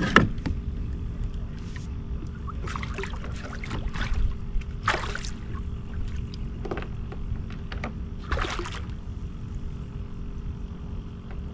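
A spotted seatrout released over the side of a kayak: one sharp splash right at the start, then several shorter splashing and handling noises, over a steady low rumble.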